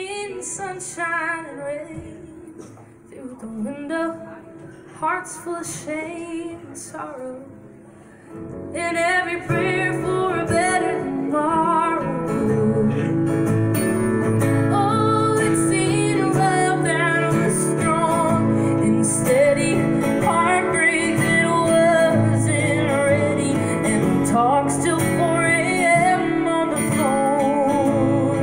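Live acoustic folk song: a female voice sings soft, drawn-out phrases over light acoustic guitar, then about nine seconds in the acoustic guitar comes in much louder with full strumming, and a wavering melodic line carries on above it.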